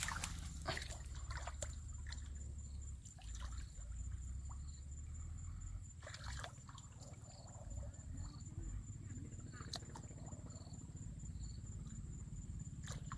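Water sloshing and splashing in short, scattered bursts, with a steady thin high tone running underneath.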